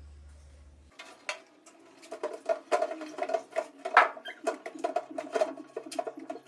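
Quick plastic clicks and taps as a refrigerator's interior parts are handled, over a steady low tone in the background.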